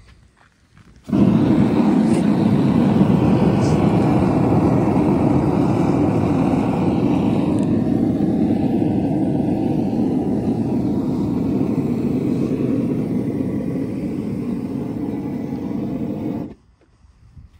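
Small gas forge's burner running loud and steady, lit suddenly about a second in and shut off suddenly near the end. The forge is being switched on and off to hold the blade's temperature during thermal cycling before the quench.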